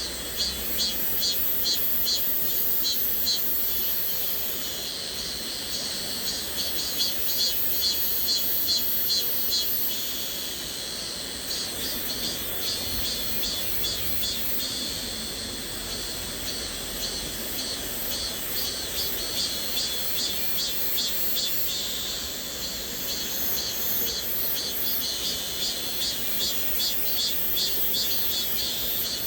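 Cicadas buzzing high and shrill in a fast pulsing rhythm that swells and eases every few seconds, over the faint steady rush of a flowing stream.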